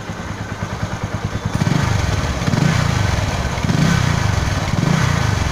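Bajaj Pulsar 135's single-cylinder four-stroke engine idling, then revved with short throttle blips from about a second and a half in. The pitch rises and falls about once a second.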